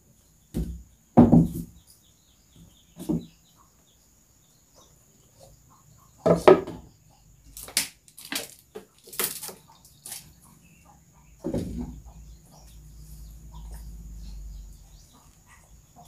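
Scattered knocks and thumps, about five in all, the loudest about a second in and about six seconds in, with a few short sharp clicks in between and a faint low rumble near the end.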